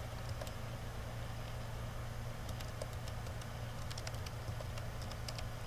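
Computer keyboard being typed on in short runs of key clicks, over a steady low hum.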